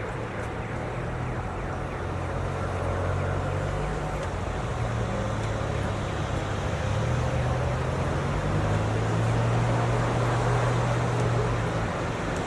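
Snowstorm wind blowing steadily: a dense rushing noise over a low hum that changes pitch a few times.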